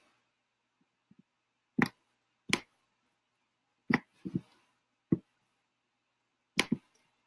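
Computer mouse clicking, about six sharp separate clicks spaced irregularly, some a second or more apart, with silence between them.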